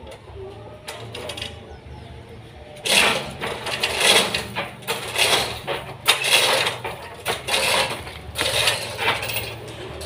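Sawmill machinery at work: a motor hums steadily underneath, and from about three seconds in there is a run of loud, irregular clattering and cracking.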